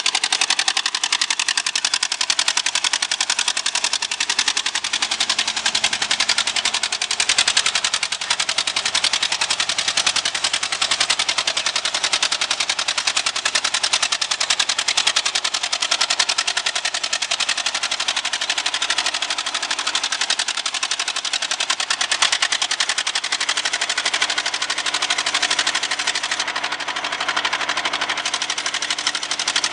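Mauldin 1500 asphalt paver's engine running as the machine is driven, a steady, rapid, loud clatter.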